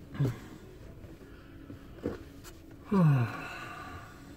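Steady cab noise of a delivery van on the move, a low hum with a faint constant tone, broken about three seconds in by a short vocal sound from the driver that falls in pitch.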